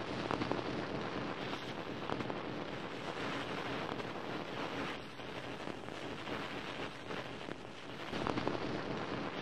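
A steady rushing, hissing noise with brief crackles scattered through it, dipping a little about halfway through.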